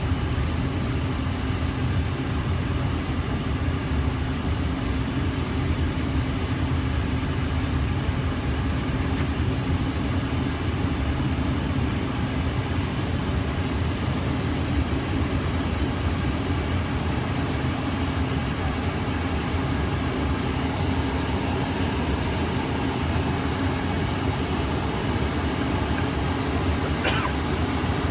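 Steady cabin noise inside a Bombardier CRJ-700 regional jet: engine and airflow noise with a constant low hum, holding level.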